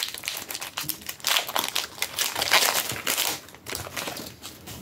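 Foil booster-pack wrapper crinkling and rustling in irregular flurries as it is handled, easing off near the end.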